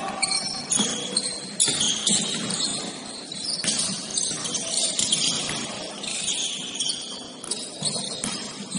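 Basketball game on an indoor court: high-pitched squeaks, such as sneakers on the hardwood, and a few sharp knocks.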